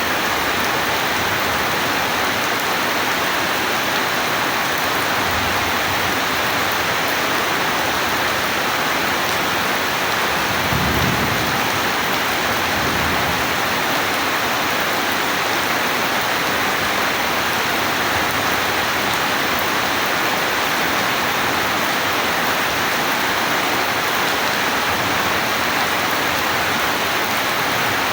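Steady heavy rain falling, with a low rumble of thunder swelling and fading around the middle.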